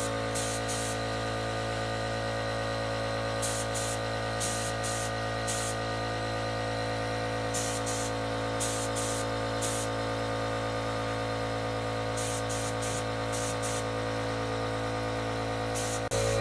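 Gravity-feed paint spray gun hissing in short bursts, in groups every few seconds as the trigger is pulled to coat the cabinet, over a steady mechanical hum.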